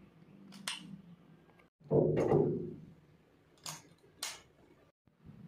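Plastic eyeglass frames and their clip-on sunglass lens being handled: several sharp small clicks, with a louder thud and rustle about two seconds in.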